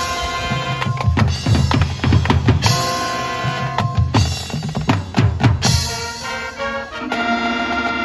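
Marching band playing: the drumline beats bass and snare drums in sharp strikes under held brass chords.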